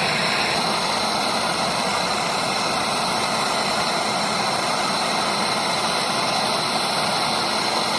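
Brazing torch flame running with a steady, loud hiss while the service-valve joint on a refrigeration line is being brazed.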